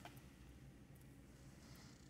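Near silence: room tone, with one faint tap at the very start.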